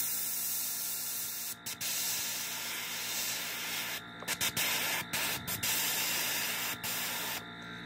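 Iwata airbrush hissing steadily as it sprays black paint, with a few brief breaks, and stopping about seven and a half seconds in.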